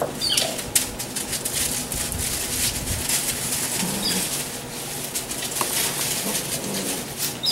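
Dry fallen leaves rustling and crackling under the paws of six-week-old Irish Wolfhound puppies as they walk and play through them. A few brief high squeaks come near the start, in the middle and near the end.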